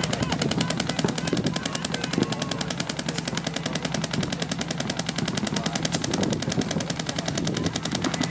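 Paintball markers firing rapidly and without a break, a fast, even rattle of shots.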